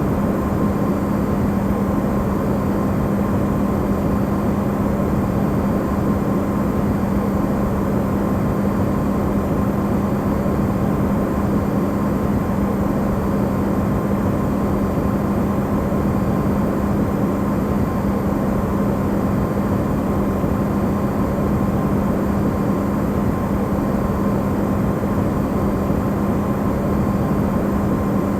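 Electrolux refrigerator running, recorded amplified: a steady, unchanging hum with a strong low drone and a faint higher tone over an even rushing noise.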